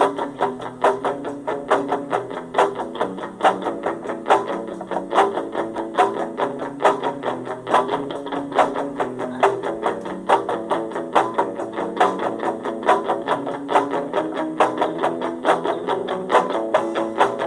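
Rock song with a guitar picking a steady, evenly repeated pattern of notes, a few per second.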